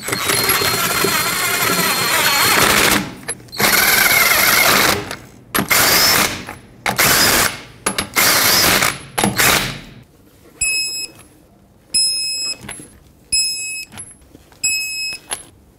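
Cordless impact wrench running lug nuts onto a car wheel in several bursts, the first about three seconds long and the rest shorter. Then, from about ten seconds in, four short high beeps about 1.3 seconds apart, from an electronic torque wrench as the lug nuts are torqued to spec.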